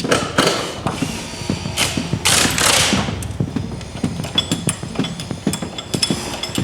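Hand tools working on a wooden structure: rapid clicking and knocking, mechanical like a ratchet, with a few short scraping noises in the first three seconds.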